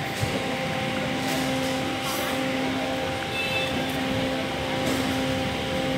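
Steady background hum and hiss, with a constant low droning tone.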